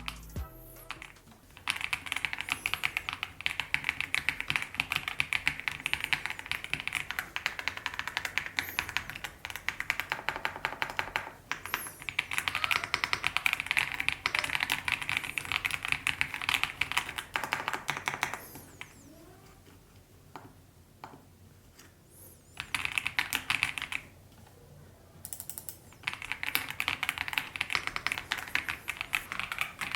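Fast typing on the EPOMAKER x AULA F75 mechanical keyboard: a dense run of key clicks, with two short breaks where only a few keystrokes are heard, about two-thirds of the way through and again near the end.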